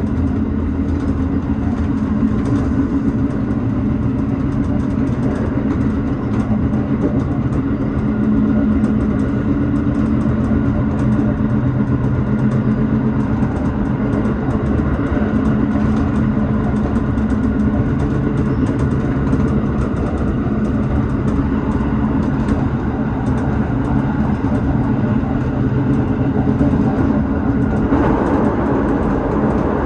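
Tobu 6050 series electric train running at speed, heard from inside the front car: a steady rumble of wheels on rail with a low hum, faint clicks, and a brighter, harsher tone setting in near the end.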